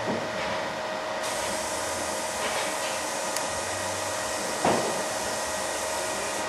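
Steady whirring machine noise with a constant hum, from food-processing machinery running. A single sharp knock comes nearly five seconds in.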